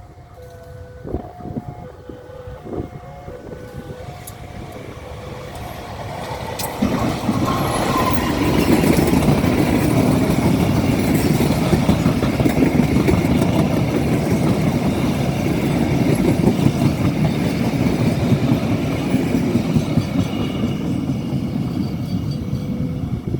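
Diesel freight train approaching and passing close by: a horn sounds in several blasts in the first few seconds, then from about seven seconds in the locomotives' engine rumble and the rolling wheels come on loud and stay loud.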